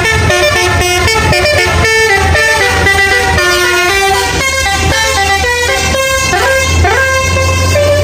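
A bus's musical "telolet" air horn plays a tune of quick stepped notes, with a couple of rising swoops near the end, over a steady low hum.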